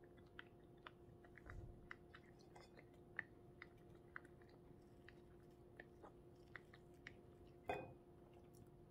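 Faint mouth sounds of a person eating: scattered small wet clicks of chewing, with a louder crackle about three-quarters of the way through, over a faint steady hum.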